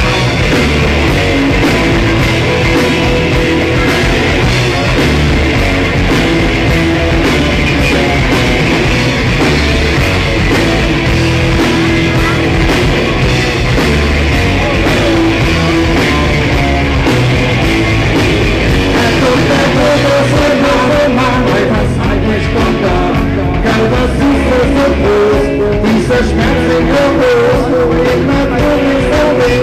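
A live rock band playing a song.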